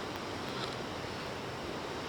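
Steady rushing noise of wind buffeting the microphone over the wash of the sea.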